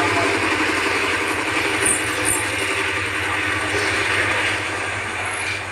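A small motor or engine running steadily, with a low hum and a fast rattling pulse, easing slightly near the end.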